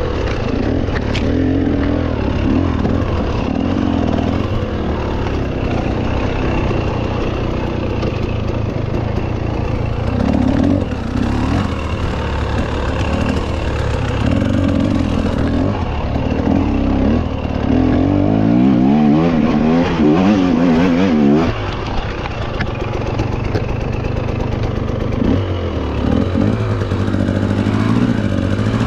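Continuous rumble and rattle of a mountain bike being ridden over a rough, rocky trail, with a hum that rises and falls every second or two and wavers for a few seconds past the middle.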